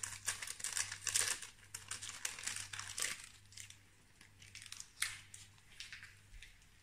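A small packet of vanilla sugar crinkling as it is torn open and emptied over a steel mixing bowl, in crackly bursts for about three seconds, then a shorter rustle about five seconds in.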